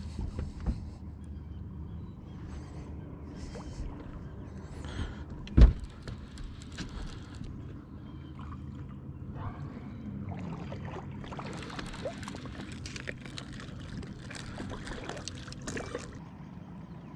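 A hooked catfish splashing at the surface as it is reeled to the boat, over the steady low hum of the boat's motor running while trolling. A sharp knock against the boat about five and a half seconds in is the loudest sound.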